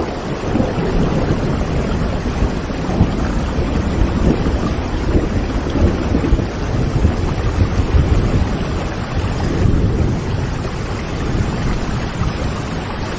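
Steady rain falling, with a low, continuous rumble of thunder underneath.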